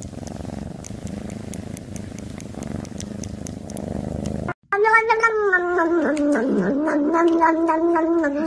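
Domestic cat purring close up. After a cut about halfway through, a long, drawn-out cat cry that wavers and dips in pitch, then holds steady.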